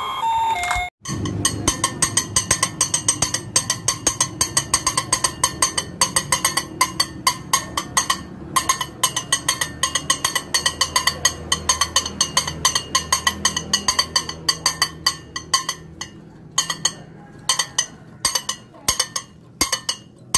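A wheeled rooster push toy clacking rapidly as it is rolled along, about four ringing clicks a second, with short pauses near the end.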